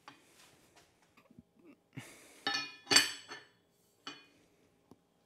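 A steel bridge tool made from leaf spring clinking against an anvil as it is handled: several metallic knocks with a short ring, the loudest about three seconds in.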